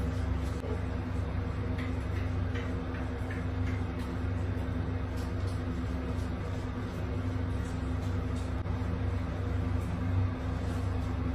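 Shower water running steadily, with a constant low hum underneath and a few faint ticks.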